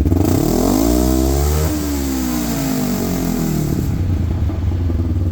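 Kawasaki Teryx KRX 1000's parallel-twin engine revved once through Trinity Stage 5 dual-can mufflers on the stock header pipe. The pitch climbs for under two seconds, falls back over about two more, then settles into a pulsing idle. The exhaust note is pretty mild.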